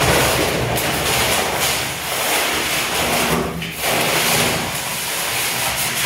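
Yellow millet seed pouring out of a 20 kg sack onto a tiled floor, a steady rushing hiss of grain that starts suddenly, with a brief dip about three and a half seconds in.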